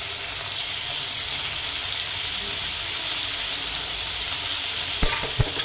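Sliced onions and tomatoes sizzling steadily as they fry in mustard oil in an iron kadhai. A few sharp knocks come near the end.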